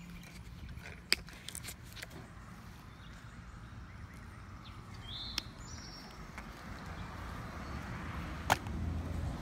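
Outdoor background with a steady low rumble, a short bird chirp about five seconds in, and two sharp clicks, one about a second in and one near the end.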